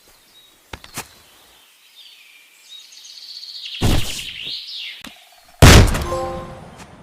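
Firearm shots: two faint clicks about a second in, then a whistling sound with a sharp bang near the middle, and a very loud gunshot with a ringing tail near the end. Birds chirp faintly in the background.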